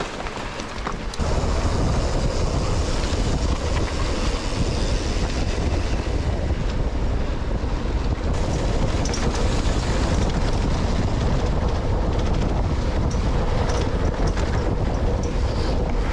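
Wind buffeting the microphone of a handlebar-mounted camera on a moving mountain bike, a steady low rumble with scattered clicks and rattles from the bike and its tyres on the rough grass-and-dirt trail. It gets louder about a second in.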